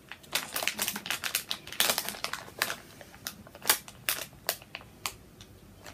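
Plastic wine-gum packet crinkling and crackling irregularly as fingers rummage inside it for a sweet, easing off near the end.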